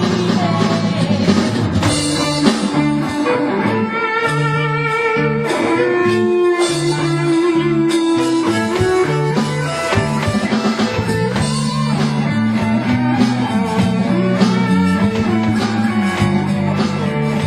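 Rock band playing live, an instrumental passage with guitar lines over a bass line that repeats in a steady pattern, and drums.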